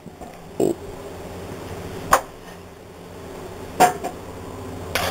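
Knife cutting potatoes in half on a cutting board: three sharp knocks of the blade hitting the board, spaced a second or more apart.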